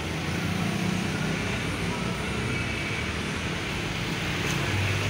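Steady low hum of a running motor over constant background noise.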